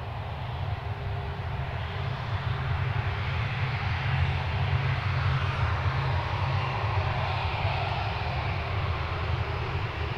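KC-135 Stratotanker's CFM56 turbofan engines running at taxi power as the jet rolls past: a steady low rumble under a broad whooshing hiss that swells a little a few seconds in and then holds.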